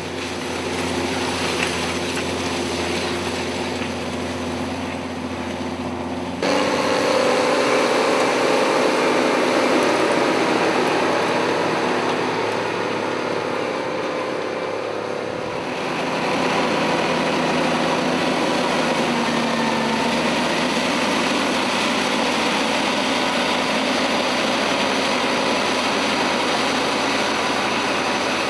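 Farm tractor engines running steadily under load while pulling soil-working implements through a field. The sound changes abruptly about six seconds in and again about fifteen seconds in.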